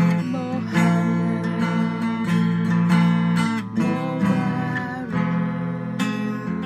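Steel-string acoustic guitar strummed by hand, ringing chords struck in a steady rhythm, with a change of chord a little past the middle.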